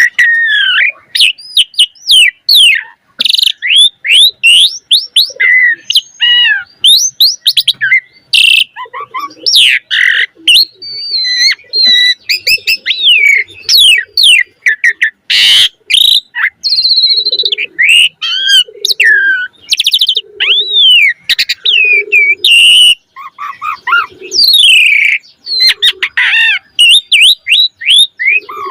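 Asian pied starling singing a fast, continuous song of varied whistles, rising and falling chirps and a few harsh rasping notes, with mimicked calls of other birds worked in. From about halfway on, short low notes recur roughly once a second beneath the song.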